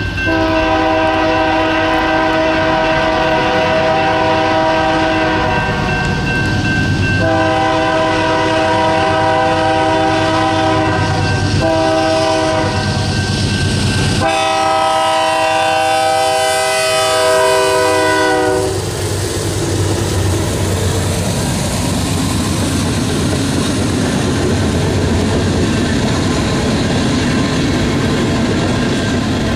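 A locomotive's multi-chime air horn sounding two long blasts, a short one and a final long one, the grade-crossing signal, its pitch dropping as the last blast begins while the train comes by. Then the train's wheels rumble and clatter on the rails as it passes.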